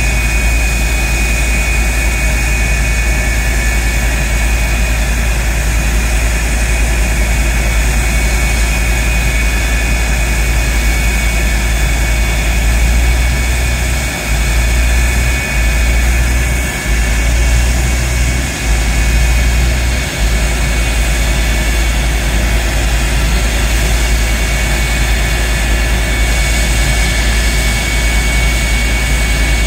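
The CF-104D Starfighter's J79 turbojet running steadily during a ground run: a high, even turbine whine over a deep, constant rumble.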